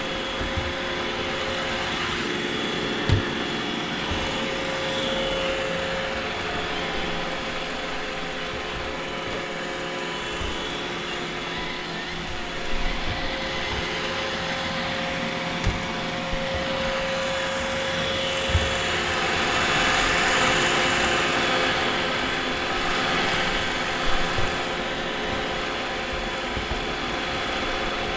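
iRobot Roomba robot vacuum running over a hardwood floor: a steady motor whir with a hiss of suction, getting a little louder for a few seconds past the middle, with a few short knocks.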